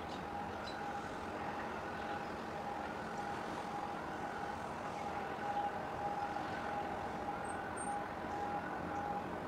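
A warbling electronic warning tone, rising and falling about once a second, over steady background noise.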